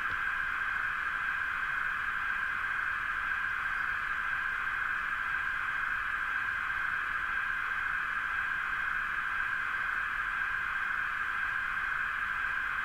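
Steady steam hiss from the sound decoder of a Roco H0 DB class 50 steam locomotive model at a standstill, played through the model's small loudspeaker, which gives it a thin, narrow sound.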